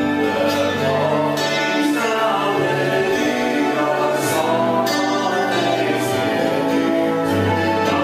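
Worship music with singing voices over instruments, the notes held and steady.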